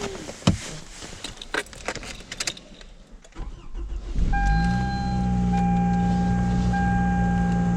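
Car keys jangling and a few clicks and knocks, then a car engine cranks a little over three seconds in, catches, and settles into a steady idle on a cold start. Over the idle a steady high electronic warning tone sounds, broken by a short gap about once a second.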